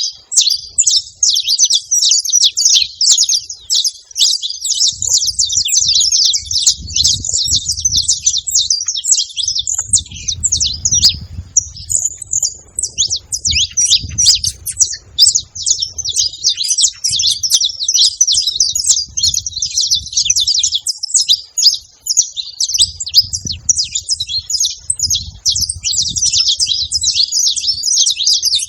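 A pair of saffron finches, male and female, chirping in a rapid, almost unbroken stream of high-pitched notes, with a brief lull about eleven seconds in.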